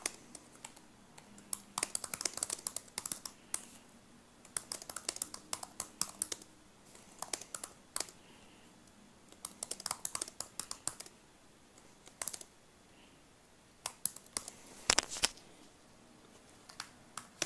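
Typing on a computer keyboard: bursts of rapid keystrokes, then a few separate clicks in the last several seconds, with the loudest pair about fifteen seconds in.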